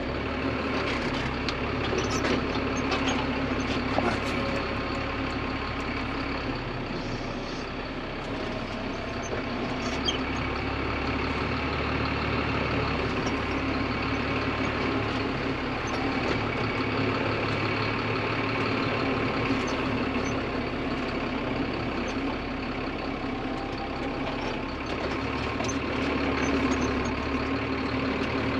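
Tractor diesel engine idling, a steady, unchanging hum.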